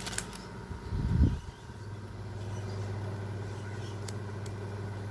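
A steady low hum, like a motor running, with a short low thump about a second in.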